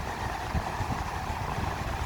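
Steady wash of sea surf on a beach, with a low, uneven rumble underneath.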